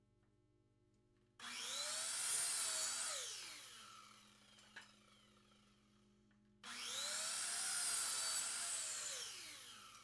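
Mastercraft sliding mitre saw making two crosscuts in a board. Each time the motor starts abruptly and spins up to a high whine, runs for about two seconds as the blade cuts, then winds down with a falling pitch after the trigger is released. There is a light knock between the two cuts, and a faint steady hum underneath.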